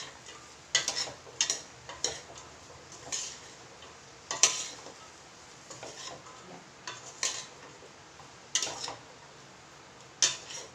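Spatula scraping and clinking against a metal pan as mixed vegetables are stirred, in irregular strokes about once a second.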